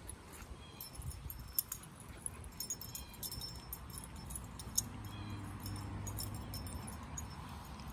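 Two dogs play-wrestling on grass: collar tags jingle in quick clusters of small metallic clicks, with scuffling and a low rumble in the second half.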